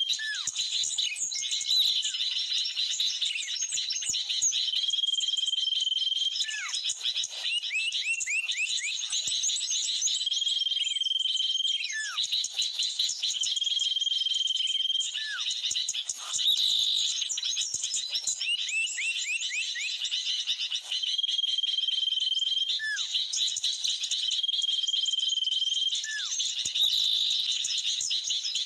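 Birds calling without a break. A level, clear whistle held about a second comes back every few seconds, between short falling notes and quick runs of rising chirps, over a steady high chirring of insects.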